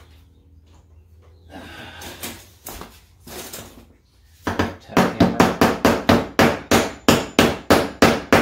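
Hammer rapidly striking the corner of a particleboard dresser drawer, about four blows a second, driving the glued corner joint together. The blows start about halfway through, after some handling noise.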